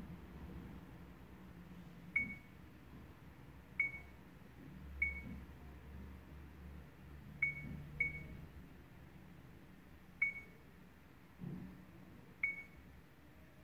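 Mio MiVue 786 dashcam giving short high confirmation beeps as its touchscreen menu is tapped: seven single beeps at uneven intervals.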